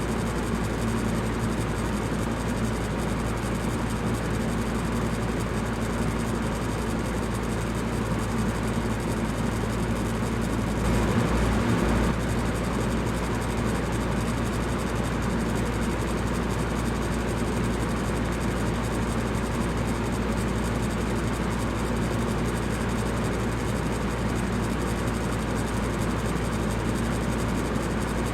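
Electric fan running steadily: an even rush of air over a low motor hum. It swells slightly louder for about a second around eleven seconds in.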